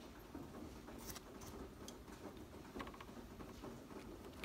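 Faint, sparse clicks and light taps of small metal parts being handled as a new brass engine temperature sensor is brought to its threaded port in the cylinder head. There are a few short clicks, about a second in and again around three seconds in.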